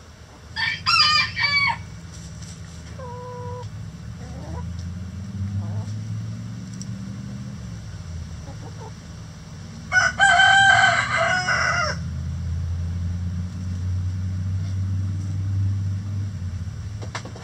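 Roosters crowing twice: a short crow about half a second in, and a longer, louder crow about ten seconds in, with a brief two-note chicken call between them. A low steady hum runs underneath.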